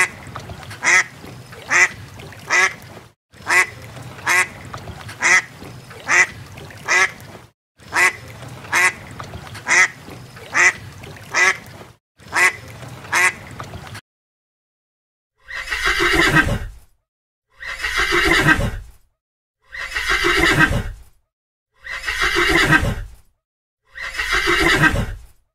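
A duck quacking in repeated runs, about one quack a second. About fourteen seconds in, after a short gap, a horse neighs five times, each whinny a call falling in pitch, about two seconds apart.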